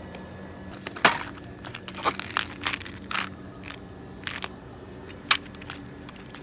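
Products being handled and taken off a shelf: a plastic tub and small cardboard mint boxes giving a string of irregular sharp clicks, knocks and crinkles. The loudest knocks come about a second in and about five seconds in.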